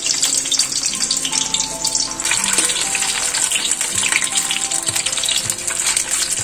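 Peeled hard-boiled eggs sizzling and crackling in hot mustard oil in a kadhai, a steady dense hiss with many small pops.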